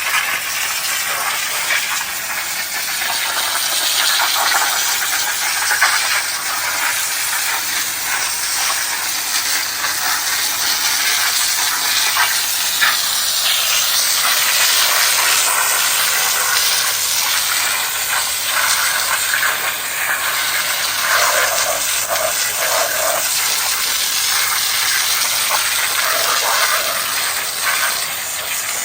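Water spraying hard onto a white oak log, a steady hiss as the dirt is washed off the wood.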